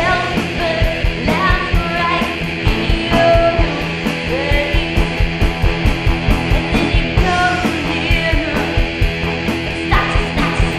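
Live psychedelic rock from an electric guitar and a drum kit keeping a steady beat, with a woman singing over it in held, bending notes that come and go.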